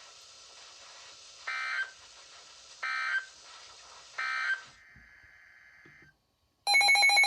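Emergency Alert System end-of-message data bursts: three short electronic screeches about a second and a half apart, then a fainter steady tone. Near the end a loud, steady alert attention tone starts abruptly, marking the start of another warning.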